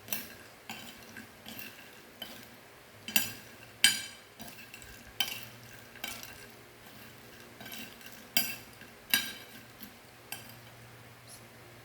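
Irregular sharp clicks and scrapes of a utensil stirring in a bowl of crunchy dry macaroni snack, roughly a click a second, with the loudest few in the middle and near the end.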